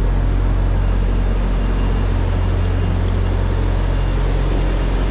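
Steady low machinery drone: a constant deep hum with an even hiss above it, unchanging throughout.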